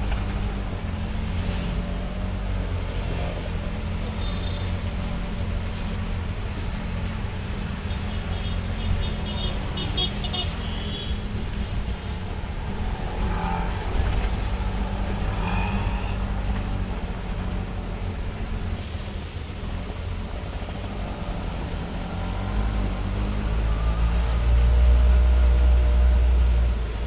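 Road traffic on a rain-soaked, waterlogged street: vehicle engines and tyres on wet road under a steady low rumble. Short car-horn toots come about a third of the way in, and a louder low rumble near the end.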